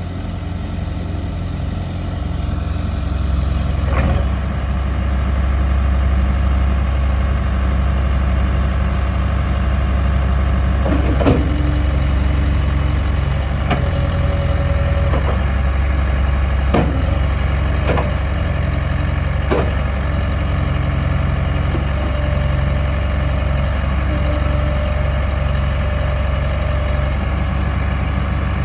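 Case 580M Series 3 loader backhoe's diesel engine running steadily, with several sharp knocks scattered through.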